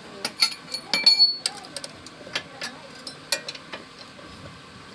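Metal tools and parts clinking against each other as they are handled: a quick cluster of sharp clinks with brief high ringing in the first second and a half, then scattered lighter clinks that die away about a second before the end.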